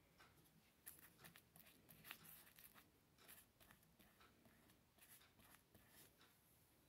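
Near silence with faint, irregular scratchy strokes of a paintbrush spreading decoupage glue over a painted terracotta pot.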